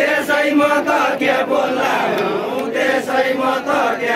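A group of men singing a Deuda folk song together in a rough, chant-like chorus, with many voices overlapping on drawn-out notes.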